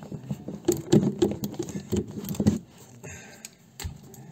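Quick, irregular metallic clicks and taps of a hand spanner turning the loosened 12 mm bolt on a convertible-roof hydraulic line fitting. They stop about two and a half seconds in, followed by quieter handling and a single low thump near the end.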